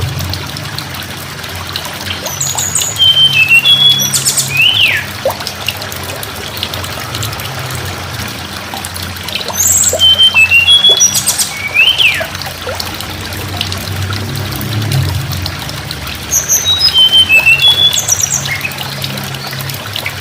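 Tledekan gunung singing three short song phrases about seven seconds apart. Each phrase is a run of high clipped notes ending in a quick downward slur. A steady low hum runs beneath.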